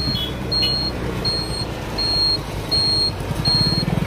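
A vehicle's electronic warning beeper sounds a steady high beep about twice a second, over a running engine and road noise while riding.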